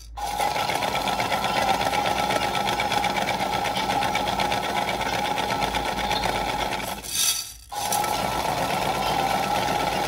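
Several toy washing machines running together: small battery motors whirring with a fast rattle as the plastic drums turn. The whirring drops out for about half a second some seven seconds in, then starts again.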